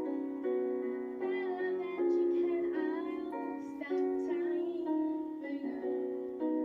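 Young girl singing a slow song over held keyboard chords that change about every second.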